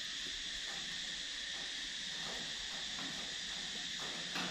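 Steady, high-pitched drone of insects chirring, even and unbroken.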